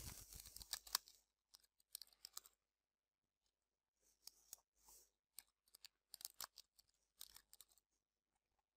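Faint keyboard keystrokes: short runs of light clicks as a name is typed on a computer keyboard, with a gap of about a second and a half before the longest run.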